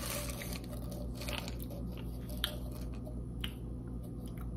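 A plastic vitamin bottle being handled and its cap opened: a few light clicks and taps, over a steady low hum.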